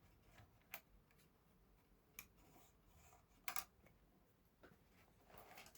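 Near silence broken by a few faint mechanical clicks from a 1961 Erika 10 typewriter as its carriage parts, likely the margin setters, are worked: single clicks about a second apart, then a quick pair.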